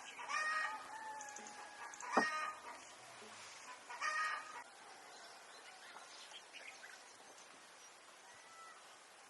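Domestic chickens calling, with a rooster crowing or clucking near the start and again about four seconds in. A sharp knock about two seconds in, and faint small-bird chirps later.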